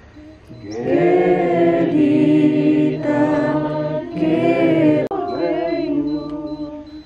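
Several voices chanting together in long held notes, sung in phrases with short breaks about four and five seconds in.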